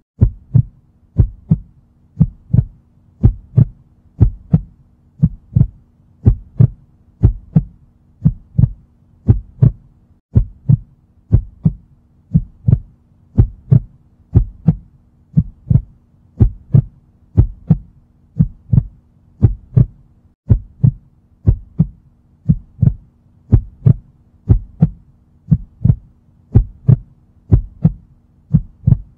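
Heartbeat sound effect: steady lub-dub double thumps, about one beat a second, over a faint steady hum.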